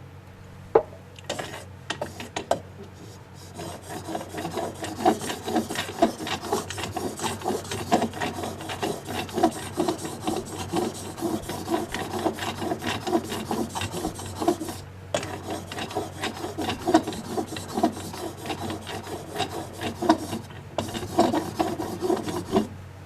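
Plane iron being honed on a sharpening stone: rapid back-and-forth scraping strokes, with a short break about two-thirds through, working the bevel until a fine burr forms along the edge. A single sharp knock about a second in.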